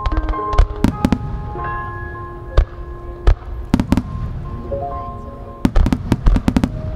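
Aerial firework shells bursting in sharp bangs that come in irregular clusters, with a dense run of bursts about two-thirds of the way in, over music with long held notes.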